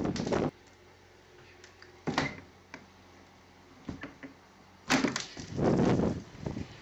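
Blizzard wind gusting against the microphone in noisy blasts: one at the start, a short one about two seconds in and a longer one about five seconds in, with near-quiet lulls between.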